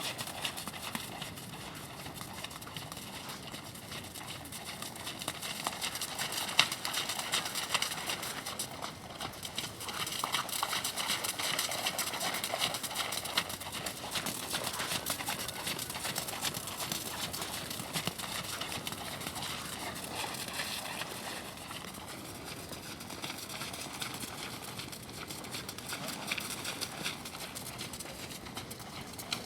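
Horse hooves striking the arena footing in a continuous clip-clop.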